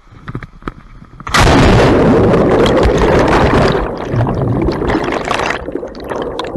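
A jumper plunging into a pool, heard on a camera that goes under with them: a sudden loud splash about a second in, then a muffled underwater rush of churning bubbles that eases off near the end.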